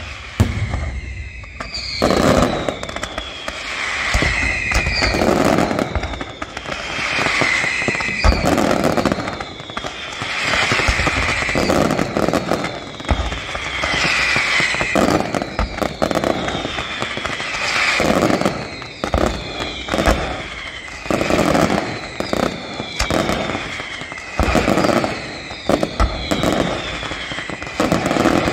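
Professional fireworks display: aerial shells bursting one after another every second or two, with dense crackling and repeated whistling tones that fall in pitch.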